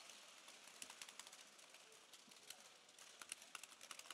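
Near silence with faint, scattered clicks of hockey trading cards being handled and flipped through, over a low steady hiss.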